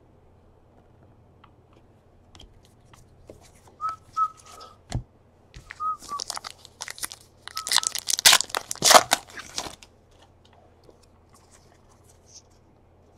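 A few short whistled notes, then a run of crinkling and tearing from a foil card pack wrapper being opened and the cards handled. The crinkling is loudest about eight to nine seconds in.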